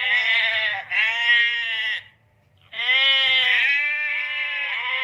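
Sheep bleating: several loud bleats in two runs, split by a short pause about two seconds in.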